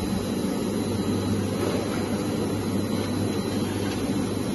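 Steady low machinery hum that does not change, with a faint high whine above it.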